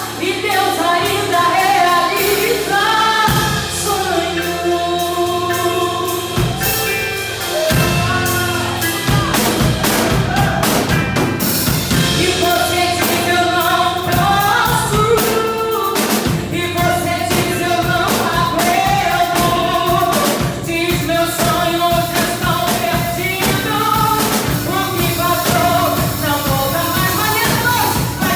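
Live worship music: singers over a band, with the drum kit coming in about a third of the way through.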